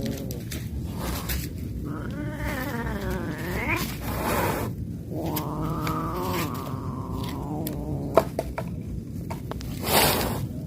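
Street cats yowling in a territorial fight: a long, wavering yowl about two seconds in that rises in pitch, then a second long yowl held for about two seconds. A short burst of noise comes near the end.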